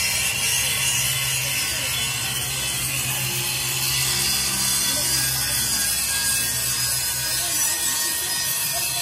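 Workshop machinery running steadily: a continuous hiss over a low, even hum, with no separate knocks or strikes.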